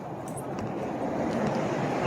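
Steady rolling noise from a Onewheel XR being ridden, with its suspension shock locked, and a few light clicks.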